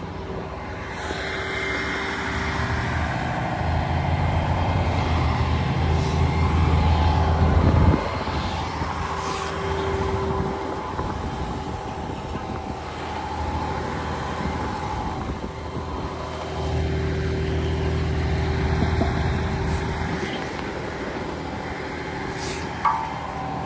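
A vehicle engine running. It grows louder for about eight seconds, drops off suddenly, then builds again later on, with a short click near the end.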